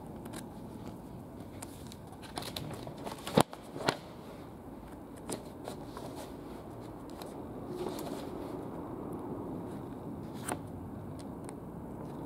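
Pages of a thick stack of old paper bulletins being turned by hand: dry rustles and a few crisp snaps of paper, the sharpest about three and a half seconds in, over steady background noise.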